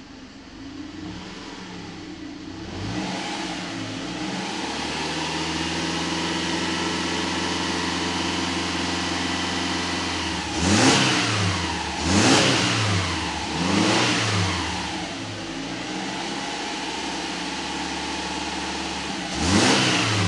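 2009 Subaru Outback's 2.5-litre flat-four petrol engine free-revving in Park, heard from inside the cabin. It climbs from idle to a steady raised speed of about 2,500–3,000 rpm, is then blipped up and down three times in quick succession, holds steady again, and is revved once more near the end.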